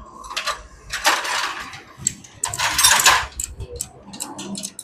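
Metal hand tools and small hardware clinking and scraping against each other: two longer scraping bursts, about one second and about two and a half seconds in, with light clicks between.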